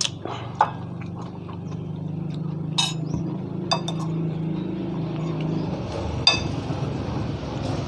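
A few sharp, light clinks, the one near the end ringing briefly, over a steady low hum.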